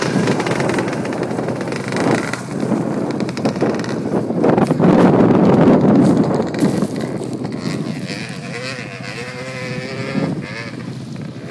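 Yamaha YZ250 two-stroke dirt bike engine running and revving on a hill climb, loudest about five to six seconds in, then a wavering engine note toward the end.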